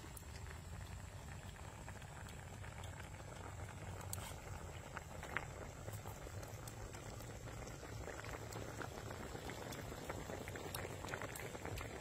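Dark braising liquid with dried chilies bubbling steadily around a pork leg in a wok, with many small pops and crackles.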